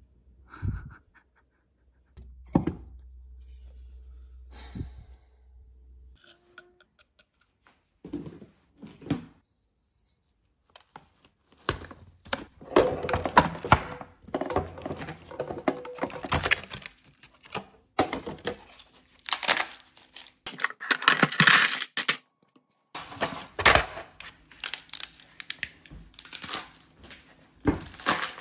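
Irregular knocks, clicks and rustling of objects being handled, sparse at first and then dense and continuous from about halfway through.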